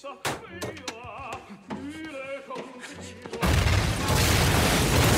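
Film soundtrack: an operatic voice singing with wide vibrato, then about three and a half seconds in a sudden loud burst of crashing noise that lasts about two seconds.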